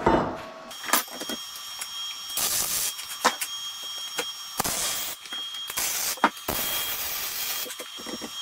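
Welder laying short tack welds on a steel trailing arm: about five bursts of hiss, each half a second to a second and a half long, with a few sharp metal taps between them and a faint steady high whine underneath.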